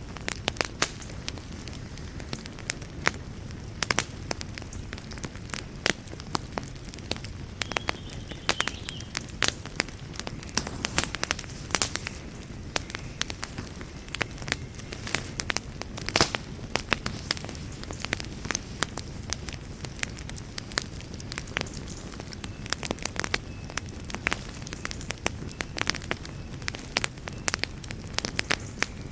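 Wood fire burning in a fireplace: a steady low rumble of flames under frequent, irregular sharp crackles and pops.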